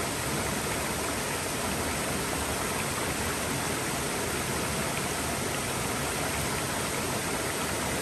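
Mountain waterfall: water falling and rushing in a steady, even roar with no breaks.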